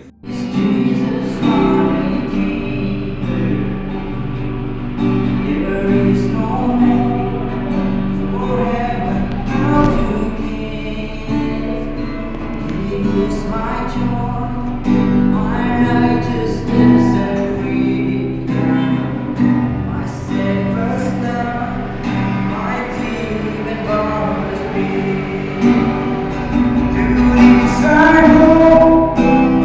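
A song with singing over instrumental backing, starting abruptly and running steadily throughout.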